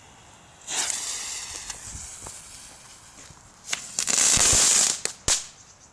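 Lesli Black Bulls ground firework going off: its fuse hisses from under a second in and fades. A few seconds later comes a loud burst of hissing crackle lasting about a second, ending in two sharp cracks.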